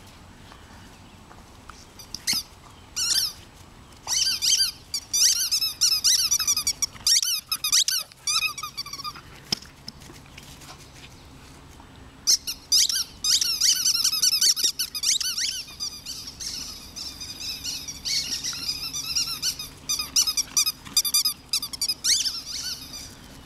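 Rubber squeaky toy football squeaking rapidly as a Dalmatian chews it. The squeaks come in quick high runs, with a short break partway through.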